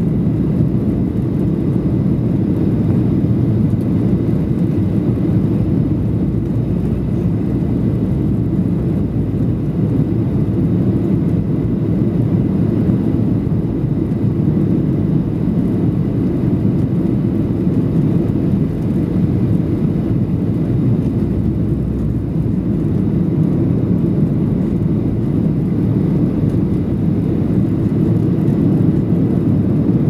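Steady cabin noise inside a Boeing 737-800 in flight: the drone of its CFM56 turbofan engines mixed with rushing airflow.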